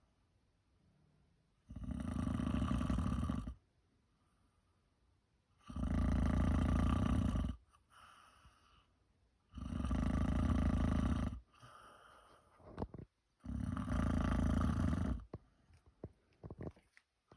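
Snoring: four long, low snores about four seconds apart, each lasting about two seconds, with quiet gaps between them.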